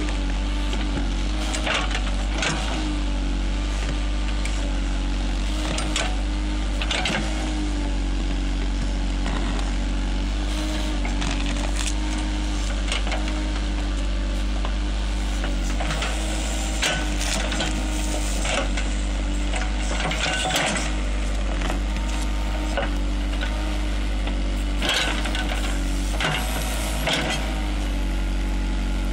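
JCB Sitemaster backhoe loader's diesel engine running steadily while its backhoe bucket digs through soil and roots, with frequent short cracks and scrapes of roots and stones against the bucket.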